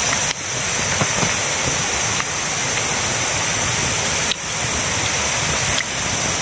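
Steady rushing of a river, an even hiss of running water with a high steady band on top.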